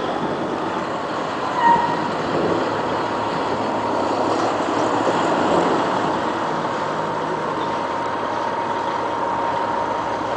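Steady running noise of a truck engine, with one short high tone about two seconds in.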